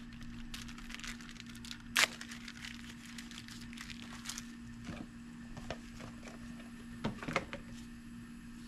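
Crinkling and rustling as an 800-grit sanding disc is handled, with scattered light clicks, the sharpest about two seconds in and a few more near seven seconds.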